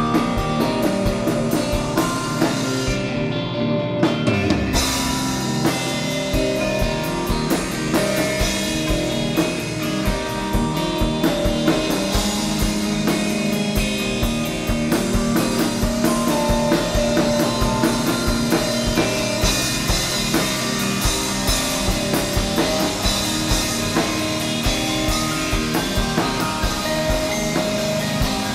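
Rock band playing live: drum kit, electric bass and guitar, with steady drumming. The cymbals drop out for about a second around three seconds in before the full band carries on.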